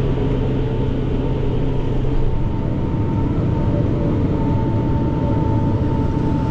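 Tractor engine and pull-type forage chopper running steadily under load while chopping corn silage, a continuous low drone with a steady high whine over it that grows a little stronger about halfway through.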